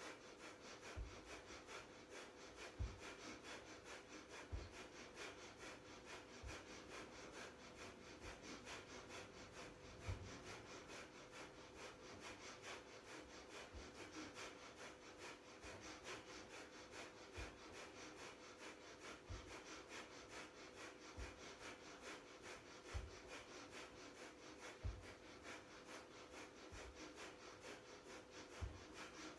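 Faint, fast rhythmic breathing through the nose: breath of fire, short pumped exhales several times a second. A soft low thump comes about every two seconds, with a faint steady hum underneath.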